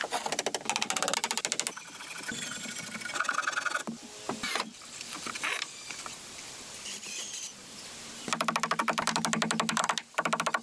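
A fast mechanical rattle in several bursts, loudest about two seconds in and again near the end.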